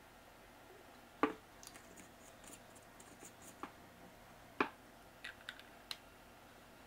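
Faint handling sounds of a fuel can against a chainsaw's plastic fuel filler during refueling. There are two sharp knocks about three seconds apart, light clicks and brief scraping between them, and a quick run of small clicks near the end.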